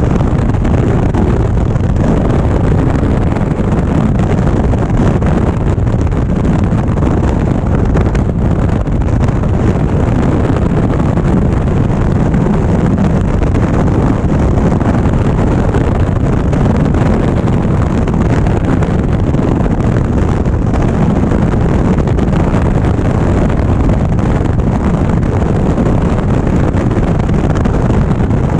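Indian Springfield motorcycle being ridden at steady speed: a continuous rush of wind over the microphone mixed with road and engine drone, with no change in pace.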